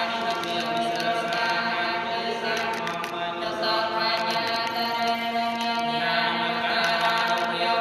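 Buddhist monk chanting a water blessing in a steady, unbroken drone, the pitch shifting about six seconds in.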